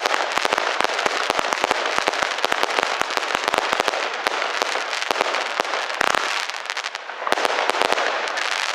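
A 144-shot firework cake firing, with dense, rapid crackling bangs. Thicker clusters come about six and seven and a half seconds in.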